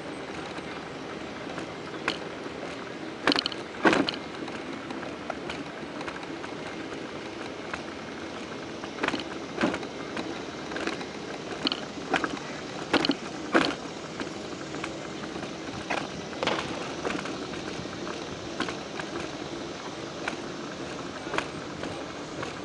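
Steady rolling noise with a faint steady hum, broken by irregular sharp clicks and knocks from a homemade camera mount jolting as it moves along a concrete sidewalk.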